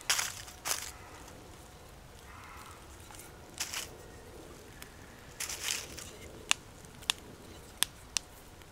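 Man blowing on a freshly lit dry-twig campfire to get it going: several short puffs of breath, the loudest right at the start. Then a few sharp crackles and snaps from the kindling in the last seconds.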